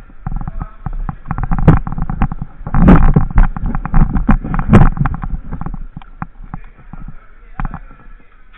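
Airsoft gunfire in an indoor arena: a dense, irregular run of sharp cracks and knocks, heaviest and loudest in the middle and thinning out near the end.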